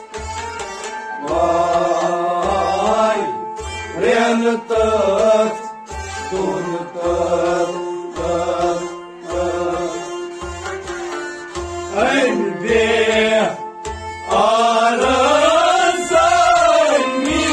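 Kashmiri Sufi song: a man's voice sings long, ornamented lines over a steady harmonium drone and a plucked string instrument, with a low drum beating evenly about once every three-quarters of a second.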